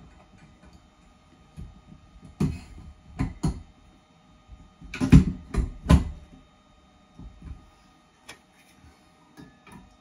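Chrome towel rail knocking and clunking as it is seated onto its wall brackets and shifted into position: a handful of sharp knocks, the loudest cluster about five to six seconds in.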